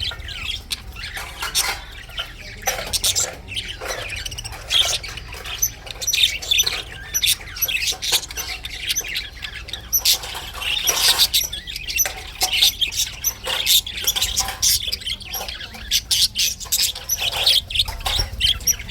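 Budgerigar chirping and chattering: a quick, continuous run of short high chirps and squawks.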